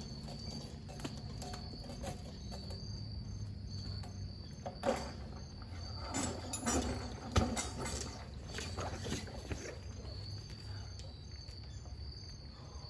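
Crickets chirping in a steady high trill, with a run of knocks and rattles in the middle, the loudest a sharp knock about seven seconds in.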